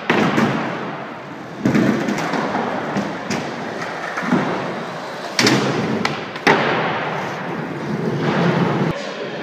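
Skateboard wheels rolling on the park surface with a steady rumble, broken by four sharp board impacts: near the start, and about 1.5, 5.5 and 6.5 seconds in.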